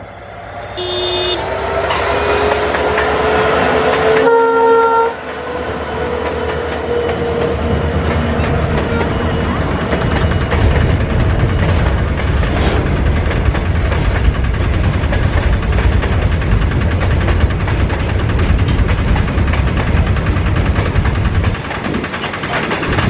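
Twin WDG-4 diesel locomotives hauling a BCNA freight train past at a station. The horn sounds briefly about a second in and again at about four seconds, over a rising engine whine. From about five seconds on, the covered wagons keep up a steady rumble and clatter as they roll by.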